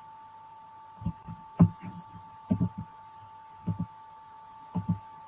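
Soft, low thumps, six or so, several in close pairs about a second apart, over a faint steady high-pitched tone.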